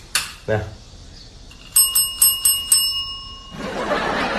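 A red tap bell struck five times in quick succession, about four strikes a second, each strike a bright ding that rings on briefly. Five rings give the answer to 3+2. A noisy wash follows near the end.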